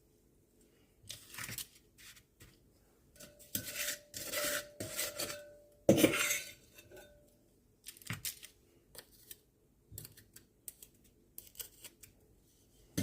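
A small scoop scraping through a damp, gritty powder mixture of washing soda, borax and salt, and clinking against the bowl and trays. There is a run of scrapes a few seconds in, the loudest knock at about six seconds, and scattered light taps after.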